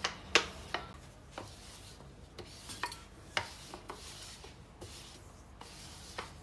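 Metal rolling pin rolling out soft yeast dough on a floured granite counter: a faint rubbing with about ten irregular light knocks as the pin and hands meet the stone.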